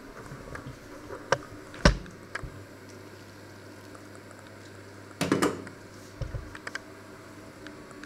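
Glass saucepan lid knocking and clinking against the pan as it is lifted off and set back on: sharp knocks about one and two seconds in, the second the loudest, a clattering cluster a little after five seconds and a few lighter clicks after it. A faint simmering of the pot runs underneath.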